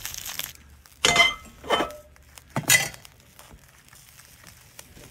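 Hot oil sizzling in a carbon steel fry pan, cutting off about half a second in, then three sharp ringing clinks of metal cookware, as a utensil knocks against the pan.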